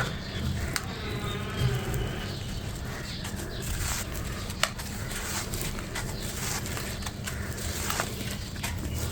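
Crunchy crumble blocks being crushed, giving scattered crisp cracks and crackles over a steady low hum.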